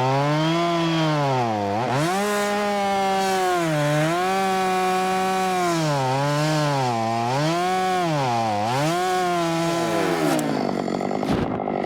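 Husqvarna 572 XP two-stroke chainsaw cutting oak at full throttle, its engine speed sagging and recovering about every one and a half to two seconds as the bar bites. Near the end the throttle is released and it drops to idle, with a short knock soon after.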